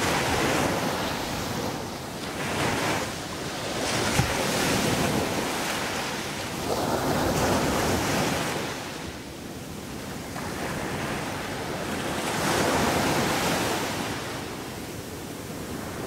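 Caribbean surf breaking and washing up a sandy beach. The rush of water swells and eases off every few seconds as each wave comes in.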